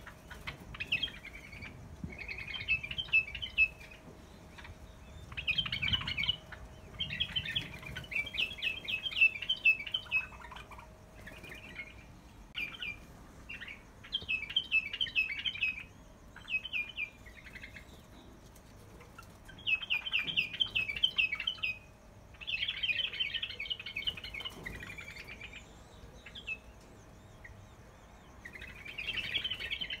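White-eared bulbuls chirping and chattering in quick bubbling phrases every few seconds, over a faint steady hum.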